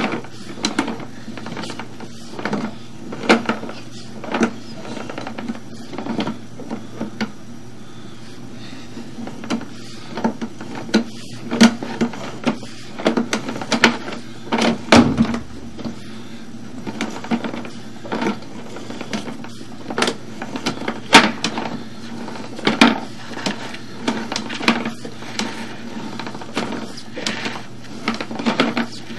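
Sewer inspection camera's push-rod cable being pulled back out of the line and fed onto its reel, giving irregular clicks and knocks, one or two a second, over a low steady hum.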